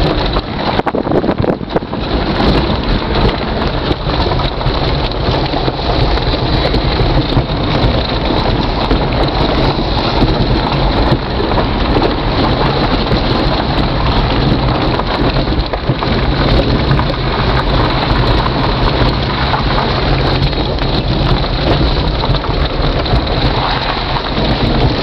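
Vehicle driving slowly along a gravel track, heard from inside the cab: a low, steady engine hum under a loud, even rush of tyre and road noise.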